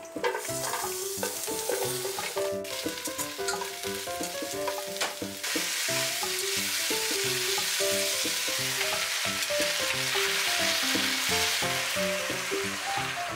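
Sliced onion, bok choy and potato sizzling in hot oil in a pot as they are stir-fried with a wooden spatula. The sizzle gets louder about five seconds in, with a few knocks early on.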